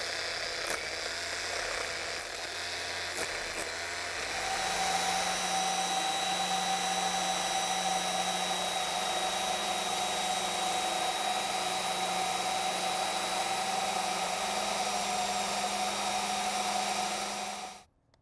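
Electric drill boring into a granite stair tread, clearing out the core left in the hole, with a few knocks from the bit in the first seconds. After about four seconds it settles into a steady motor whine, which cuts off suddenly near the end.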